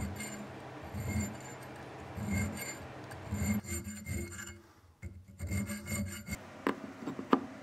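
Small square needle file rasping back and forth in a drilled hole in a metal strap, about one stroke a second, squaring the hole out. Two sharp clicks near the end.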